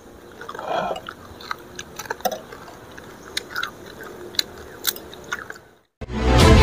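Close-up eating sounds: chewing and crunching of crispy tempeh chips and noodles, with scattered sharp clicks. It cuts to a moment of silence, and loud music starts about six seconds in.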